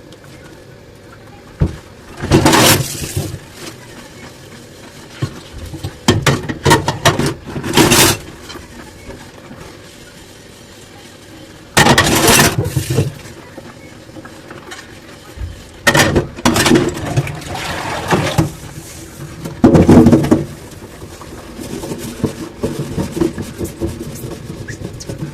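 Dishwashing by hand: water and dishes being handled at the sink, coming in about six separate bursts of a second or two each, with quieter gaps between.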